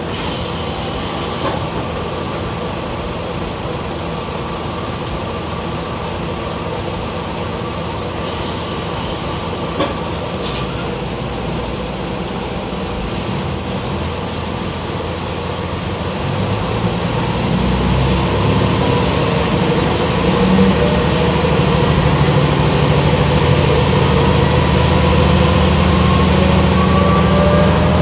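YR-880 diesel railcar heard from inside, its engine idling while stopped at a station, with a short hiss about eight seconds in. Past the halfway point the engine opens up and the railcar pulls away, with a transmission whine that rises steadily in pitch as it gathers speed.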